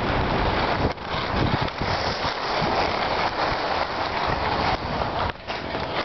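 Skis hissing and scraping over packed, groomed snow as the skier slows to a stop, with a brief break in the noise about a second in.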